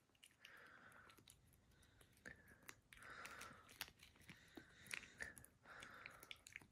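A cat licking a Churu lickable treat from a squeezed tube: faint, quick wet licks and small mouth clicks, many to the second.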